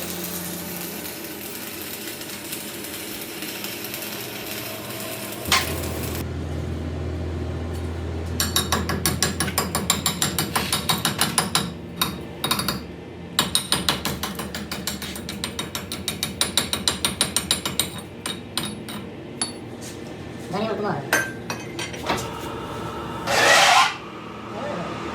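Hand-tool work on a metal part: long runs of rapid, regular metal strokes, several a second, over a low machine hum that starts a few seconds in. Near the end comes one brief loud burst of noise.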